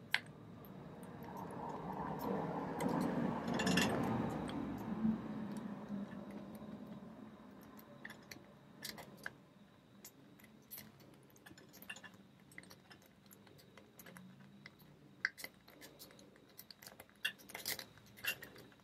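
Steel rake pick scraping in and out of a pin-tumbler door lock's keyway, a rasping run in the first few seconds, then scattered light metallic clicks of the pins and tension wrench. The raking does not open the lock.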